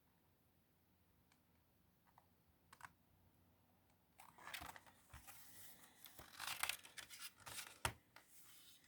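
Nearly silent at first, then from about halfway paper rustling and crinkling as the pages of a picture book are handled and turned, with a short sharp click near the end.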